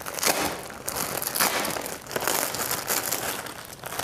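White plastic mailer packet crinkling and rustling as hands pull and tear it open, in irregular bursts.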